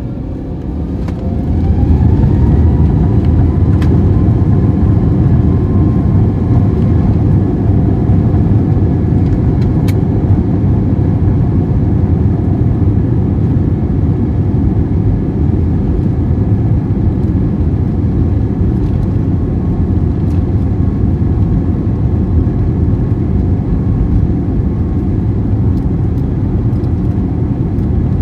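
Airbus A321neo's CFM LEAP-1A turbofan engines spooling up to takeoff thrust, heard from inside the cabin over the wing. A rising whine levels off about two seconds in, then a steady loud roar carries on as the aircraft rolls down the runway.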